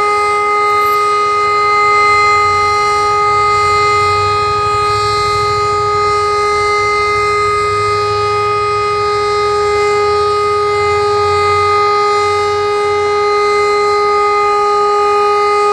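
E57 electric air-raid siren sounding a loud, steady, unbroken tone, the all-clear (Entwarnung) signal, with its pitch held level.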